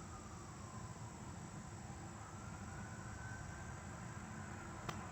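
Faint, steady low background rumble with a faint whine that slowly dips and rises in pitch, and a single click near the end.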